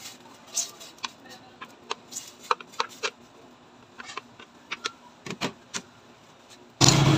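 A wooden spatula scrapes and taps on a ceramic plate as sliced onion, ginger and tomatoes are pushed into a stainless steel pot of water, making a scatter of light clicks and knocks. Near the end, a loud, steady rushing noise with a low hum cuts in suddenly.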